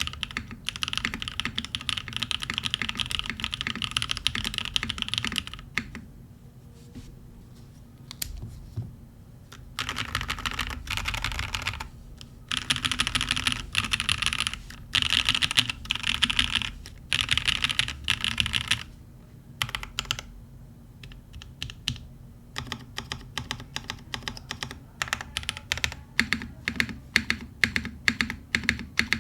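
Typing on an MC65 custom mechanical keyboard with custom-lubed Cream Soda switches, a carbon fiber plate and GMK keycaps: fast runs of keystrokes broken by a couple of short pauses, then slower, separate keystrokes in the last few seconds.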